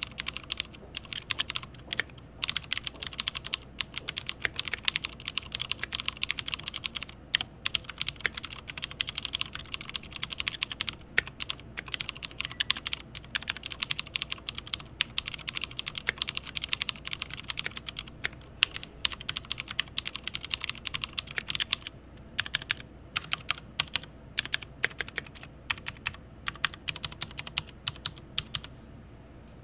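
Continuous fast typing on an IKBC C104 mechanical keyboard with Cherry MX White clicky switches and PBT keycaps. It is a dense, irregular run of key clacks with a click that is fairly quiet for a clicky switch, and it stops just before the end.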